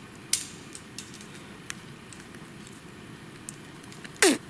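Small hard objects being handled: a few light clicks and clinks, the first about a third of a second in the loudest, then near the end a short, louder sound whose pitch drops quickly.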